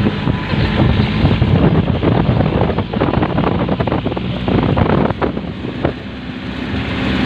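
Vehicle engine running while on the move, with wind buffeting the microphone.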